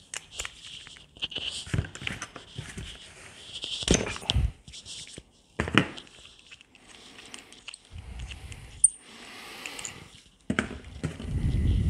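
Hands handling metal parts on a cardboard-covered bench while fitting a clutch master cylinder to a pedal box: irregular clicks, taps, scrapes and rustling, with a few sharper knocks. A low rumble comes near the end.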